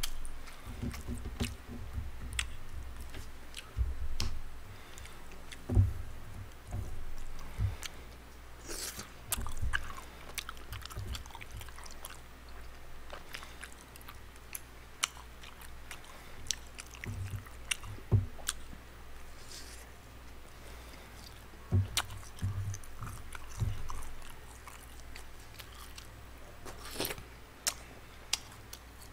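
Chewing and biting of tteokbokki rice cakes and fried snacks close to the microphone, in irregular bursts with short pauses and occasional sharp clicks.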